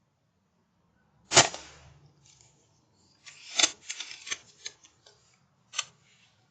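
An air rifle firing once, a single sharp crack with a short tail, about a second and a half in. It is followed by a second or so of rustling and knocks, then a single sharp click near the end.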